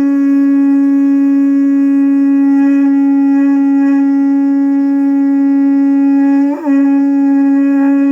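Vishnu (Padam) shankh, a conch shell, blown in one long, loud, steady note. About six and a half seconds in the tone briefly dips and wavers in pitch, then carries on.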